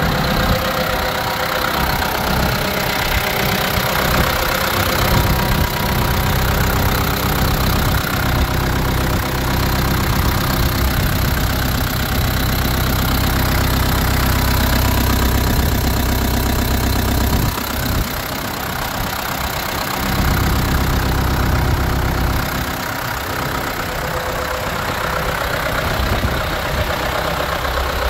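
A 1985 Ford 7610's four-cylinder turbo diesel engine idling steadily. It is strongest through the middle and a little quieter in the last third.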